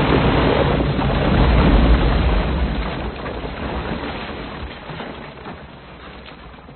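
Film sound effect of a nuclear blast and cave-in in a tunnel: a loud, deep rumble that peaks in the first two seconds and then slowly dies away.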